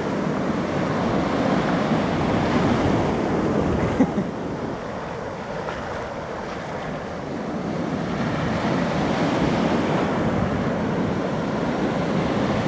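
Ocean surf breaking and washing around the legs in the shallows, with wind buffeting the microphone. A brief knock about four seconds in, and the wash is quieter for a few seconds after it before building again.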